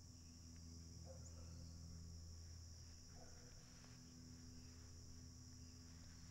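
Faint, steady insect chorus: a continuous high-pitched trill, with a low steady hum underneath.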